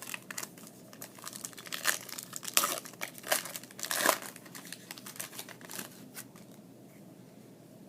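Foil wrapper of a trading card pack crinkling and tearing open, a run of irregular crackles that dies down about six seconds in.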